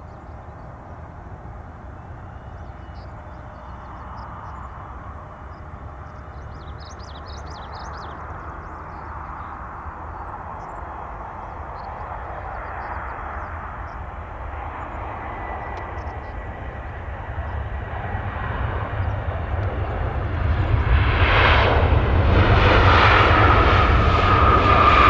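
Airliner engines growing steadily louder as the aircraft approaches, with a high whine coming in over the last few seconds.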